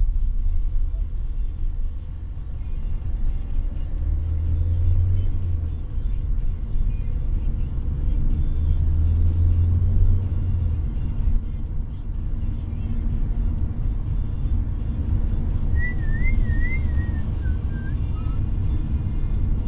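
Car driving, heard from inside the cabin: a steady low rumble of engine and road noise that swells twice, about four seconds in and again around nine seconds.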